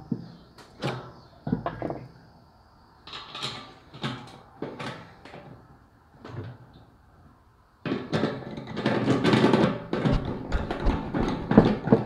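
Small metal clicks and knocks from nuts being fitted by hand onto the studs of a fuel-tank sending unit's mounting flange. From about eight seconds in, a denser run of clicking and rattling as a nut driver runs a nut down.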